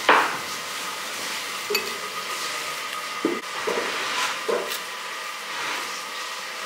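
Steady crackly hiss of background noise, with a few light clinks and knocks of glazed ceramic bowls and dishes being picked up and handled.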